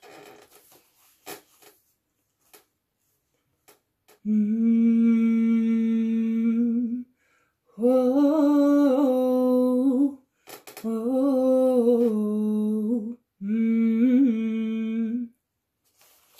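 A woman humming a slow, wordless melody in four long phrases, the first held on one note and the later ones bending up and down.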